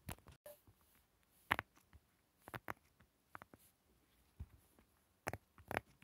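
Silicone push-pop fidget toy (pop-it) being pressed with the fingers: a scatter of short, soft pops as its bubbles are pushed through, irregular, never more than a few a second, the sharpest about a second and a half in.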